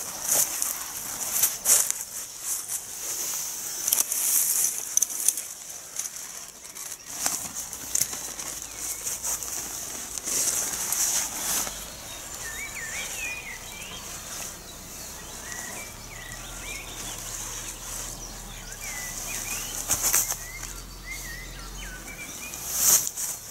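Nylon tent flysheet rustling and flapping in irregular bursts as it is pulled over the tent and tugged into shape. Faint bird chirps can be heard in the second half.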